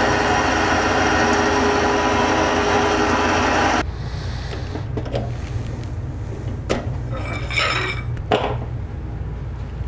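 MX-180D mini metal lathe running under a cut with a steady whine. It stops suddenly about four seconds in, and a few metal clinks and knocks follow as the work and tools are handled.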